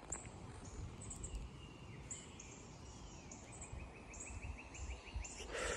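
Faint outdoor ambience of songbirds chirping: many short, high repeated notes and, in the middle, a rapid even trill, over steady low background noise. A brief louder sound comes just before the end.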